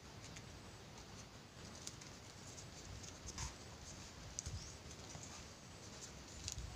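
Faint rustling and crinkling of fresh coconut-leaf strips being threaded through a woven leaf fish, with a few soft ticks as the leaves rub and bend.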